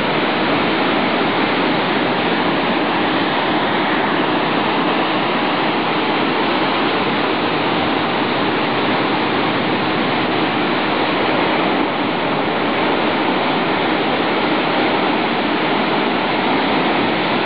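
Ocean surf breaking, heard as a steady rushing noise with no let-up.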